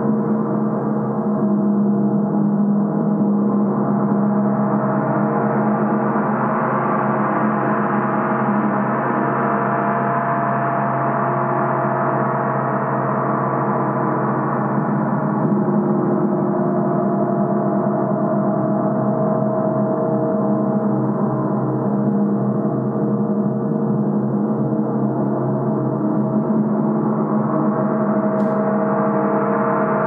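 Large 60-inch symphonic gong sounding continuously: a steady, dense wash of many overlapping tones with no separate strikes to be heard. The upper overtones swell brighter about a fifth of the way in, fade back, and rise again near the end.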